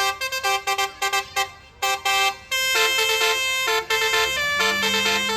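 Multi-tone 'telolet' (basuri) bus horn playing a melody: quick, choppy short notes at first, then longer connected notes from about halfway, with a lower tone sliding up and holding near the end.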